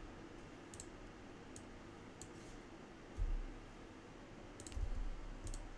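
A few sharp computer mouse and keyboard clicks spread out, with two dull low thumps about three and five seconds in, the loudest sounds.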